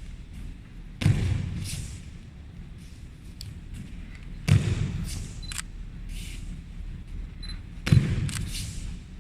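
Three heavy thuds about three and a half seconds apart: people thrown onto mats, each landing with a slap of the breakfall.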